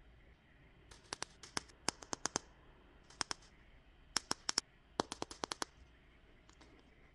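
Long fingernails tapping on a hard plastic toy capsule ball. The taps come as quick runs of sharp clicks in several bursts, starting about a second in and stopping near the end.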